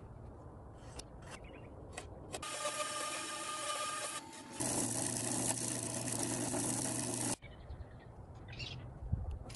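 Light knocks of wooden pieces being handled on a workbench. From about two and a half seconds in, a band saw runs and cuts through a stacked wooden block in two stretches, the second louder with a steady low hum, and it cuts off suddenly near the end. Faint handling of wood follows.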